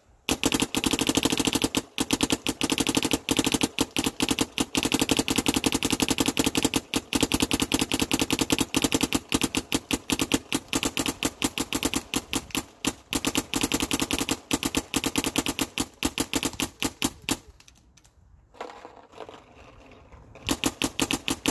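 Planet Eclipse Etha 2 electro-pneumatic paintball marker firing on compressed air in long rapid-fire strings, a fast stream of sharp pops. It stops for about three seconds near the end, then fires another rapid string.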